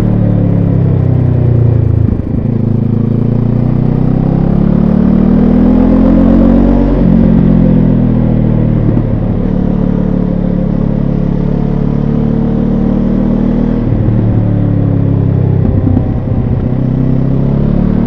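Benelli TRK 702 X's parallel-twin engine heard on board while riding. Its note climbs for several seconds and then falls back, with short dips in level about two seconds in and again near the end.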